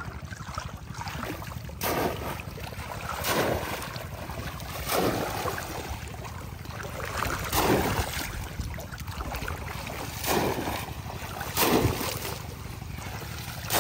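Heavy splashing of pond water as a person wades and lunges through it, about six big splashes a second or two apart, over a steady low rumble of wind on the microphone.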